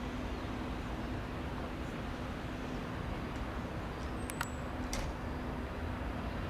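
Boeing 747-400's jet engines running with a steady rumbling hiss and a low hum. A few sharp clicks come a little past halfway.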